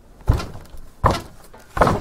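Footsteps on a wooden attic floor: three heavy steps at an even walking pace, each a dull thud on the boards.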